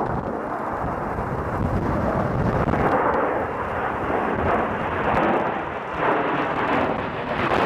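Twin-engine jet aircraft flying overhead: a steady rushing rumble from its engines.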